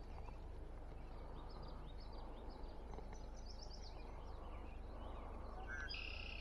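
Faint birdsong over a low steady background noise: a run of quick high chirps about two seconds in, and a short call near the end.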